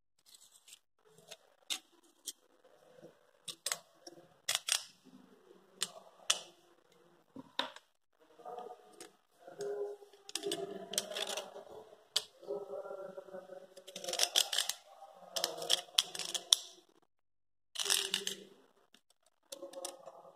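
Blue plastic snap-off utility knife being handled while a new blade is fitted and slid out: a series of sharp plastic clicks from the slider ratchet and parts snapping together, with stretches of plastic and metal scraping in between.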